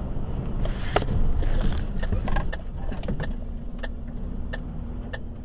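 Truck engine and road rumble heard inside the cab, with a sharp knock about a second in and then an even ticking about twice a second.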